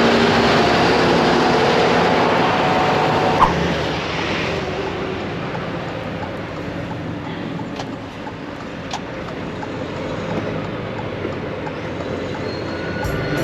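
Truck towing a loaded car-hauler trailer on the road: steady engine and road noise, louder for the first four seconds and then easing off, with a single sharp click about three and a half seconds in.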